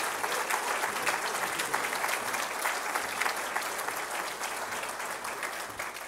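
Audience applauding, a dense clapping that gradually fades toward the end.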